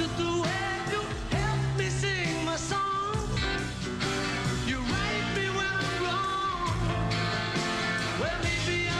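Live rock band playing: piano and band backing under an electric lead guitar whose notes bend and slide up and down.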